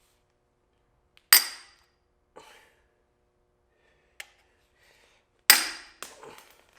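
Hammer blows on a chisel against a seized steel turbo manifold stud: two hard, ringing metal strikes a little over a second in and again near the end, with lighter knocks between and after them.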